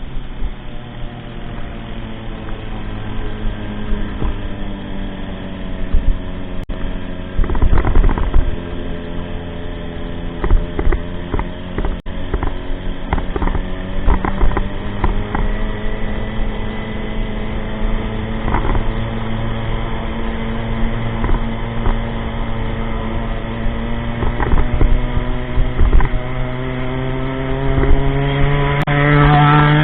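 Motorcycle engine running under way, its pitch easing down and then climbing steadily near the end as it picks up speed, with repeated short low thumps over it.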